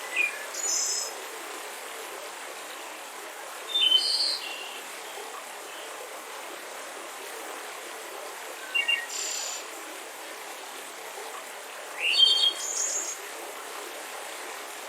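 Songbirds chirping in short high phrases about every four seconds, over the steady rush of a mountain river.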